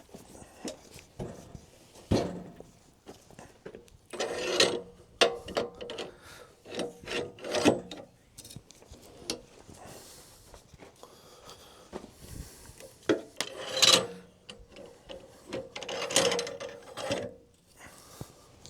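Irregular scraping and rubbing by hand, in short bursts, with a few sharp knocks.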